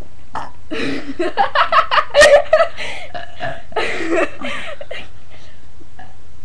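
Girls burping and laughing: a run of short, loud pulses about a second or two in, then a briefer one near the middle.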